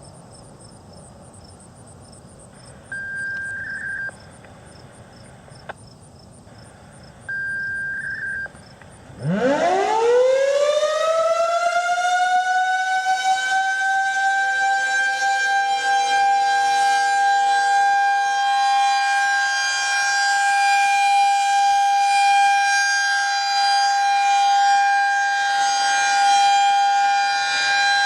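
Federal Signal 2001 siren winding up about nine seconds in, its pitch sweeping quickly upward and then holding a loud, steady high tone: the alert signal of a test. Before it starts, insects chirp steadily and two short beeps sound.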